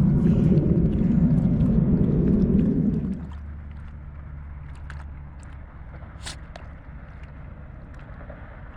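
Wind rumbling on the microphone for about three seconds, then dropping away suddenly to a faint, steady low hum with a few small clicks.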